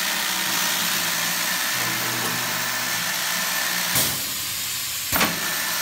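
The SCMI MB 63 boring machine's drilling motors running with a steady hissing whir, and a low hum joining in about two seconds in. Two sharp clacks come about four and five seconds in.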